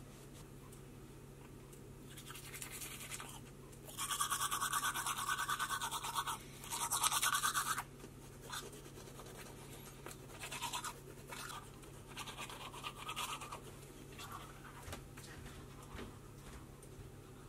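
Teeth being brushed with a toothbrush: a quiet scrubbing, with two loud, very fast bursts of brushing about four and seven seconds in, then softer short scrubs.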